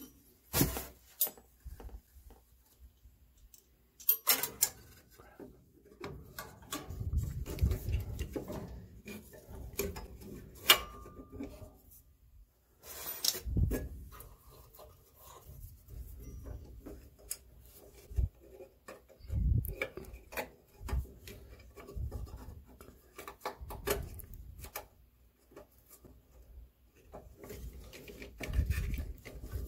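Hands working a furnace draft inducer blower motor into place in its housing: irregular rubbing and scraping with short clicks and knocks of metal and plastic parts.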